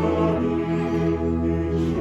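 Slow church choral anthem music with long, sustained chords.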